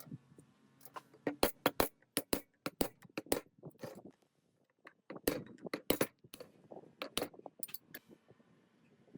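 Metal parts clinking and knocking against each other in quick, irregular clusters as they are handled, with a short pause about halfway through.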